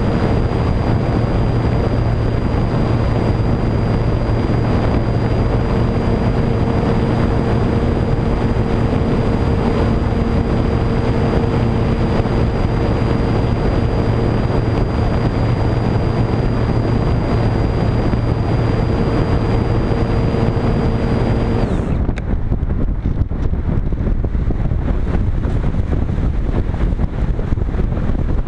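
Electric motor and propeller of a Multiplex Cularis model glider running at a steady speed with a high whine, heard over wind rushing past the onboard camera. About 22 seconds in the motor is cut and the tones stop abruptly, leaving only the wind rush of the glide.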